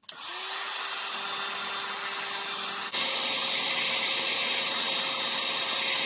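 Heat gun blowing hot air to shrink heat-shrink tubing over crimped wire connectors. It is a steady fan whirr that starts suddenly, then steps up to a higher pitch and gets a little louder about three seconds in.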